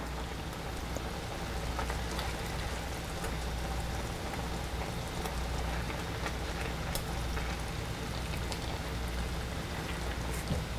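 A pan sauce simmering and sizzling as chicken breasts are laid into it: a steady crackling bubbling, with a few faint clicks of a fork against the stainless steel pan.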